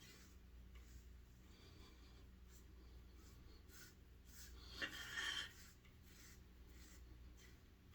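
Faint, short scratchy strokes of a razor scraping across lathered stubble, with a louder, longer scrape about five seconds in.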